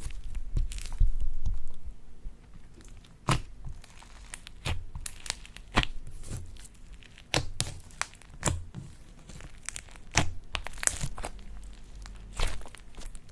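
Slime being squeezed and worked by hand, giving irregular crackles and pops with soft low thuds.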